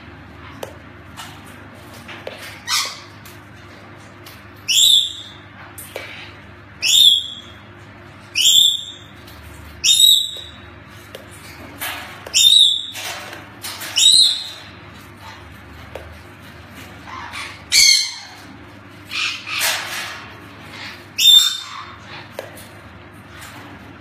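Hyacinth macaw giving a series of short, harsh squawks, about ten of them, roughly one every one to two seconds, over a faint steady hum.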